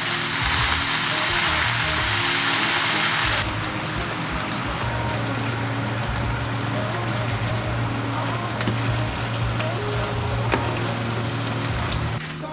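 Food sizzling in a hot pan: a loud hiss that drops suddenly about three seconds in to a quieter, steady crackling sizzle with scattered pops. Background music plays underneath.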